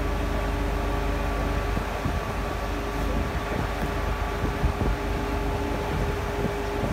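Heavy wellsite machinery at a coiled tubing rig running steadily: a low engine rumble with a steady whine over it, joined by scattered low knocks from about two seconds in.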